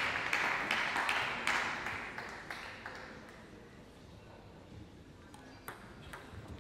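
Spectator applause after a won point, dying away over the first three seconds. A few sharp clicks of a celluloid table tennis ball bouncing follow near the end.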